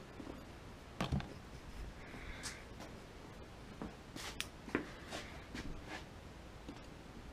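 Quiet workshop room with scattered light clicks and small knocks from handling tools or parts, a couple about a second in and a cluster between about four and six seconds.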